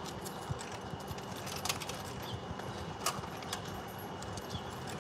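City street ambience at an intersection: a low hum of distant traffic with a few scattered light clicks.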